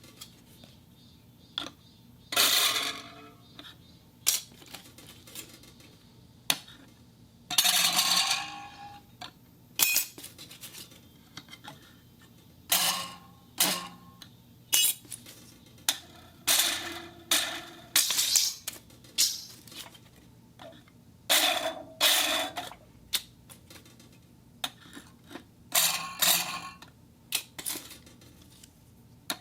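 Wooden box being knocked, shaken and scraped for sound effects: a run of irregular sharp knocks and short clattering, rattling scrapes, spaced a second or two apart, some single clicks and some lasting about a second.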